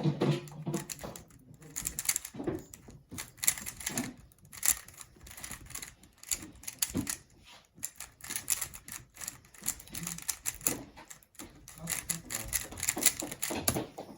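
A 3x3 Rubik's cube being turned fast in a speedsolve: rapid, uneven plastic clicking and clacking of the layers, which stops abruptly at the very end.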